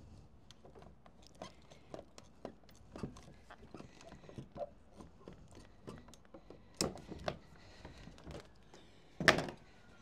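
Sheet lead being cut by hand: a run of short, irregular clicks and crunches, with a louder sharp knock about two-thirds of the way in and another near the end.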